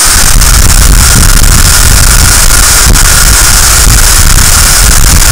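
Dyson DC35 cordless stick vacuum running on its max setting: a loud, steady rush of air with a faint whine from the motor.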